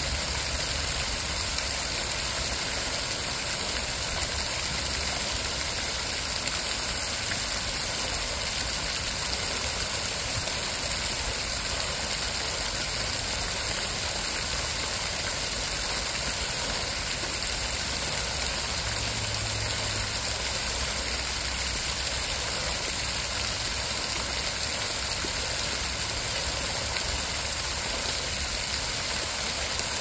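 Fountain jets spraying and falling back into a pond: a steady, unbroken rush of splashing water, with a low rumble underneath.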